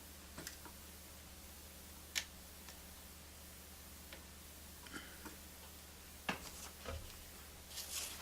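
Scattered small clicks and taps of metal parts and hand tools being handled while a record-player turntable and its motor are reassembled, with two sharper clicks about 2 and 6 seconds in, a soft thump near 7 seconds and a brief rustle near the end, over a faint steady hum.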